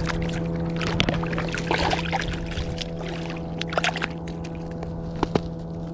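Light water splashing and a few sharp clicks as a small flounder is pulled to the surface on a fishing line and grabbed by hand, over a steady low hum.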